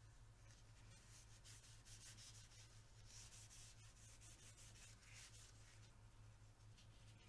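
Faint rubbing and light handling of the Tec-9's metal parts as oil is worked onto them, over a steady low hum.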